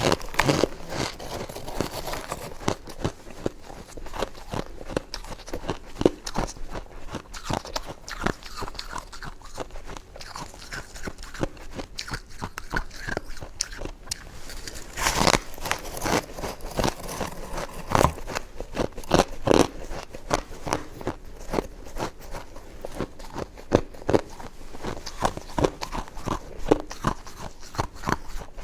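Close-up biting and chewing of frozen snow ice: repeated crisp crunches and crackles at an uneven pace, with a few louder bites in between.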